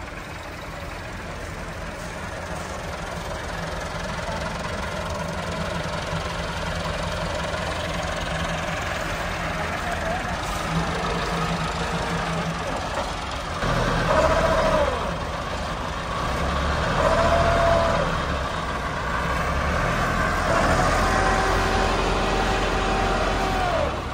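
Massey Ferguson 385 tractor's diesel engine running steadily, then revved hard three times from about halfway, each rev rising and falling. The tractor is straining under load with its rear wheel dug into soft soil.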